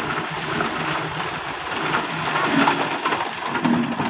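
Massey Ferguson tractor's diesel engine running steadily under load while broken stone tumbles from the front-loader bucket into a trailer, with scattered clattering and knocks of stone on stone.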